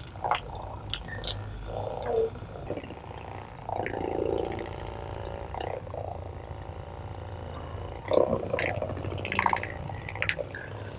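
Rustling and scattered soft clicks of a patient being handled on a treatment table during soft-tissue release of the SI joint, over a low steady hum; the clicks bunch together near the start and again about eight to ten seconds in.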